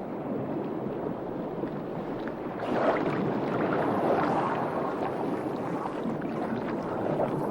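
Steady rushing of sea and wind that swells a little about three seconds in.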